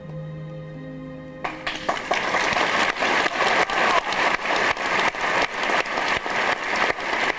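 A theatre orchestra holds a few sustained notes, then about a second and a half in a theatre audience breaks into loud applause that continues.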